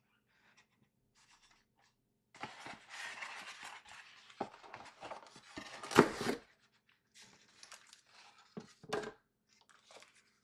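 Cardboard packaging being handled: rustling and scraping of the cardboard box and pulp tray as the accessory box is opened, with a sharp knock about six seconds in and another thud near nine seconds. The first couple of seconds are nearly silent.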